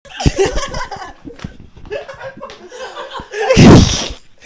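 People laughing and chuckling, with one much louder burst about three and a half seconds in that reaches the top of the recording level.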